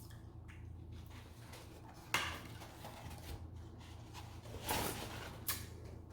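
Eating sounds from a plate of buttery seafood boil: a few short wet bites and handling noises, the sharpest about two seconds in and two more near the end, over a low steady hum.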